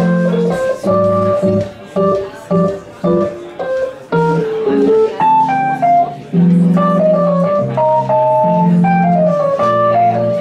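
Small swing jazz combo playing an instrumental opening, led by keyboard chords and a melody line over guitar and bass, in short phrases with brief breaks.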